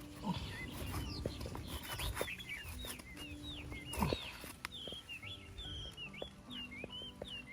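Small birds chirping over and over in quick, high, mostly falling notes, over a low rumble with a few knocks, the loudest about four seconds in.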